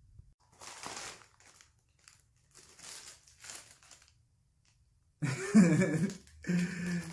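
Small plastic bag crinkling as it is handled and opened, in several short rustles. A man's voice comes in about five seconds in.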